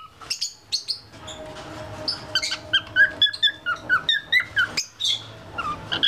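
Young grey cockatiel chattering in quick squeaky chirps and short rising and falling whistle notes, with a couple of brief pauses: the early chatter of a juvenile that is learning to whistle.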